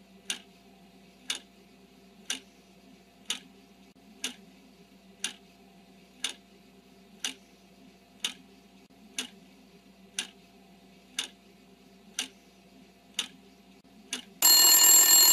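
Clock ticking about once a second as a countdown sound effect, over a faint steady hum; near the end a loud alarm bell rings, marking that the answer time is up.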